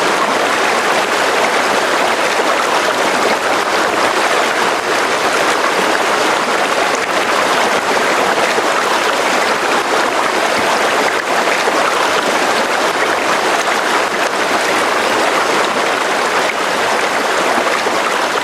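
Steady rushing of flowing water, an even, unbroken sound.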